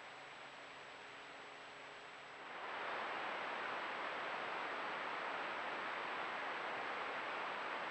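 Steady hiss of a trail camera's microphone picking up outdoor ambience, growing louder about two and a half seconds in, with a faint high-pitched whine throughout.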